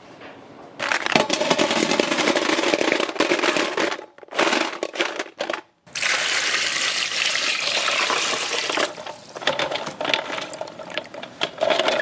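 Water pouring into a stainless steel bowl of snails, splashing over the shells: a long pour starting about a second in, a short break, then a second steady pour. Near the end the pour gives way to choppier splashing as hands swish and rub the snails in the water to wash them.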